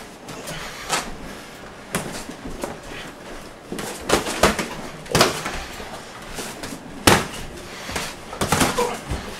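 Boxing gloves landing during sparring: a run of sharp thuds and slaps at uneven intervals. The loudest comes about seven seconds in.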